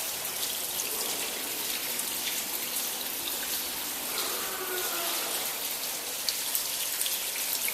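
Water spraying and splashing steadily, washing leaked sour milk out of the insulation cavity behind a milk tank's outer panel.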